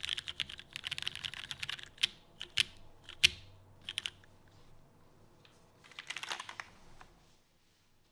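Custom mechanical keyboard with Cherry MX Brown tactile switches lubed with Tribosys 3203, in an aluminum plate with GMK keycaps, being typed on. A fast run of keystrokes gives way to a few separate presses, one a sharper, louder clack about three seconds in, then another short flurry of typing.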